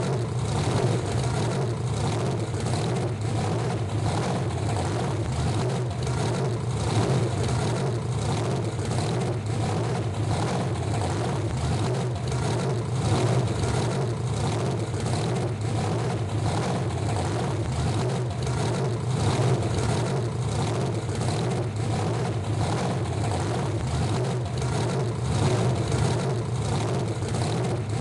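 Monster truck engine running steadily at a low, even speed with a deep, pulsing note that neither rises nor falls.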